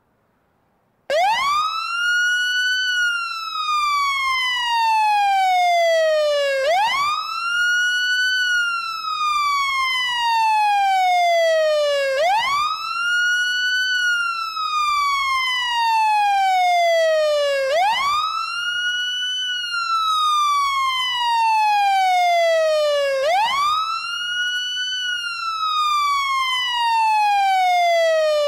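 Fire engine siren wailing: it starts about a second in, and each cycle rises quickly in pitch and then falls slowly, about five times, each cycle lasting about five and a half seconds.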